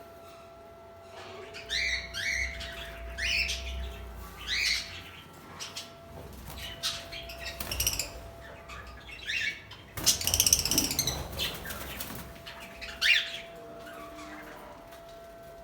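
Budgerigars chirping in short, scattered calls, with a burst of wing flapping about ten seconds in.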